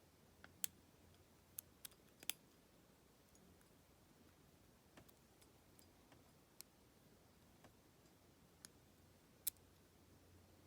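Faint, irregular small metallic clicks of a lock pick and tension wrench working the pin stacks of a Federal PL90PE lock-out padlock, with a few sharper ticks as pins are pushed.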